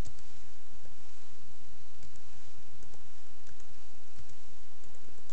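Keys of a Compaq Evo N400c laptop keyboard being typed: scattered single key clicks, a few at a time, over a steady background hiss.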